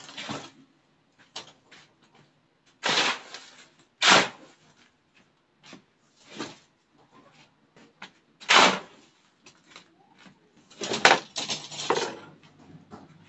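Wet concrete being worked by hand with a long-handled tool on the ground: separate scraping strokes every couple of seconds, with several in quick succession near the end.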